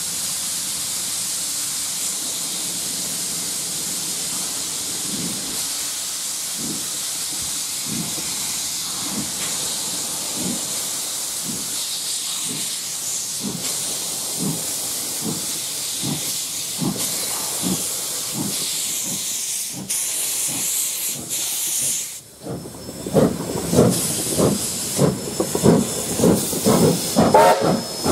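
New Zealand Railways A class steam locomotive A 428 moving off with steam blowing from around its cylinders: a steady loud hiss, with exhaust chuffs that gradually quicken. About three-quarters of the way in the sound cuts to louder, sharper chuffs at about two a second as the locomotive works away.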